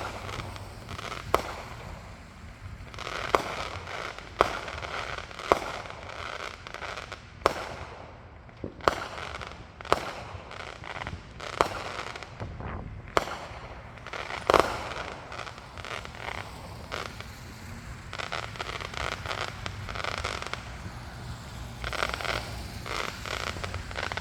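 Fireworks going off: about a dozen sharp bangs at irregular intervals, the loudest about halfway through, with stretches of crackling between them and the heaviest crackle near the end.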